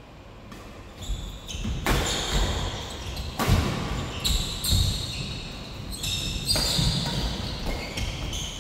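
Badminton doubles rally: rackets striking the shuttlecock in a string of sharp smacks, starting about a second in, mixed with the players' shoes moving on the synthetic court mat.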